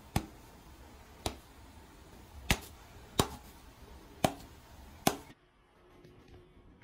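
Six sharp taps or knocks at uneven spacing, then the background hiss drops away about five seconds in.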